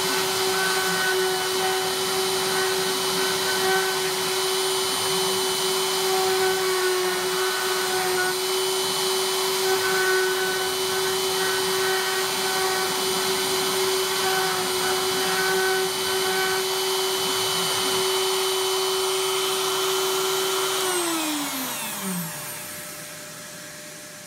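Bosch trim router on a Piranha desktop CNC running steadily with a high whine while its V-carving bit cuts letters into wood. About 21 seconds in the router winds down: the whine falls in pitch and fades as the carve finishes.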